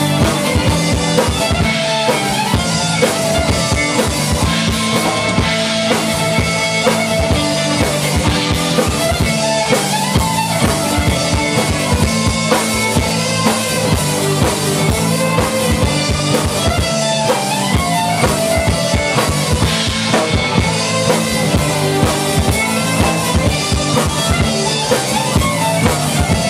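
Live folk-rock band playing an instrumental passage: fiddle over acoustic and electric guitars, with a full drum kit keeping a steady beat.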